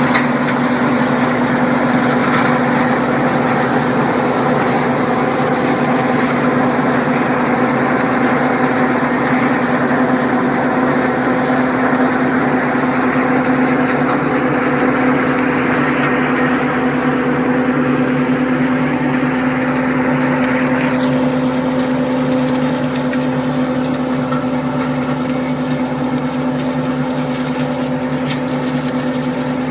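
Mechanical grape harvester working a vineyard row, its engine running at a steady pitch under a constant noisy rush, getting slightly quieter toward the end.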